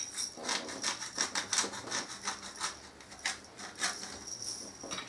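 Pepper mill being twisted, a run of quick, irregular crunching clicks as peppercorns are ground.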